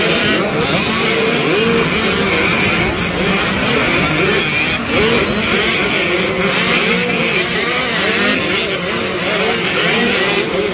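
Several youth motocross bikes' small two-stroke engines revving hard on the track, their pitches climbing and dropping over and over with throttle and gear changes.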